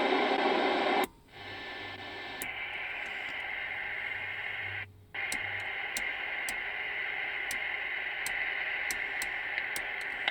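TriStar 790DX CB radio receiver hissing with band static in upper sideband mode, louder for about the first second. It cuts out briefly twice, and faint sharp ticks run through the static.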